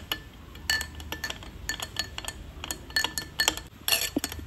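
Metal spoon stirring in a glass mug, clinking against the glass at an irregular rate of a few clinks a second.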